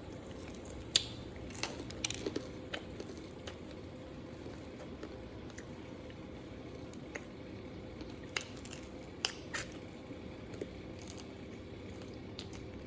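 Close-up sounds of someone eating pizza: scattered wet smacks and clicks of biting and chewing, the loudest about a second in and again around eight and nine seconds in, over a faint steady hum.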